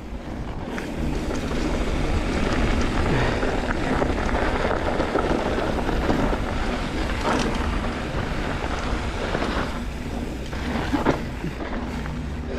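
Wind buffeting the microphone over the rumble of a mountain bike's tyres rolling on dirt, with a few short clicks and rattles from the bike.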